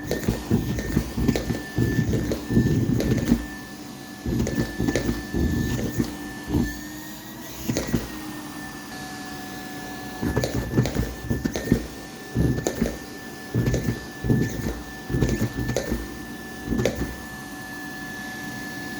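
Vacuum cleaner running with a steady motor whine while sucking at a sock. Irregular bursts of rumbling and fluttering come and go as the sock is pulled at the nozzle, with a few pauses and a calmer stretch near the end.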